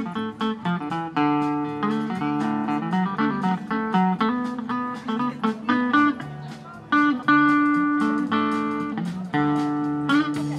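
Live trio of archtop guitar, upright bass and drums playing an instrumental Americana medley, with the guitar leading on plucked and strummed chords. The playing thins briefly around two-thirds of the way through, then comes back in with a strong chord.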